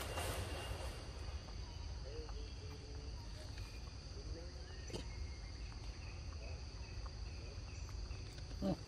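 Steady high-pitched drone of insects in the surrounding woodland, over a low rumble, with a few faint short calls and a brief louder sound near the end.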